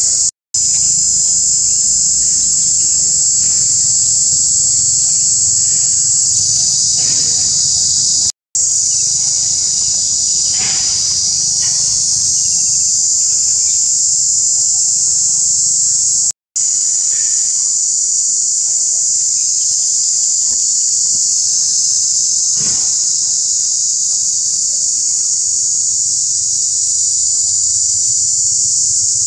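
Loud, steady high-pitched insect chorus buzzing without pause, cutting out completely for a moment three times.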